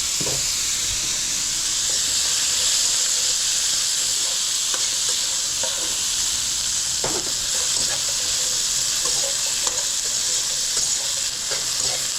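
Chopped carrots and corn frying in hot oil in a pan, a steady sizzling hiss, with a few faint clicks of the food being stirred.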